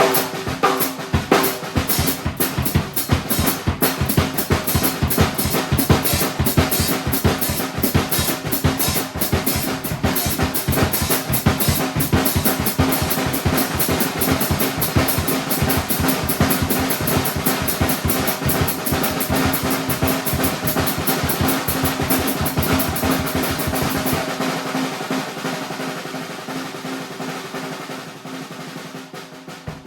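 Drum kit played in a fast, dense improvised groove, with rolls on snare and bass drum. About 24 seconds in the bass drum drops out and the playing grows quieter, tapering off near the end.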